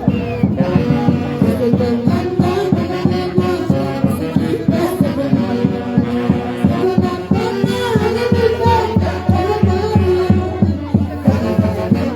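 Live orchestra playing music with a steady beat.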